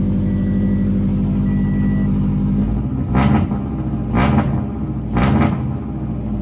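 Toyota 86's flat-four engine idling steadily, then blipped three times about a second apart. The revs test for a rattle that a loose plastic piece near the headers had been making.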